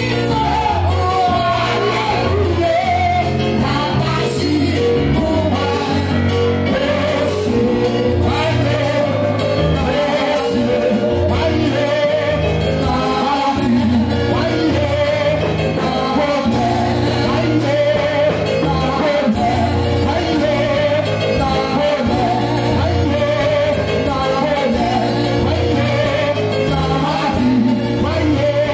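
Haitian Pentecostal worship music: a congregation singing with a live band, with a bass line moving in held notes under the voices and steady percussion. There are occasional shouts.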